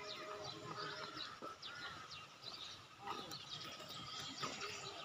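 Several small birds chirping and calling from the surrounding trees: many short, quick chirps overlapping one another, with no steady song pattern.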